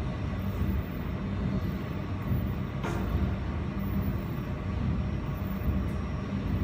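Jewelry laser welding machine and its water chiller running: a steady low hum with a faint high whine, and a single sharp click about three seconds in.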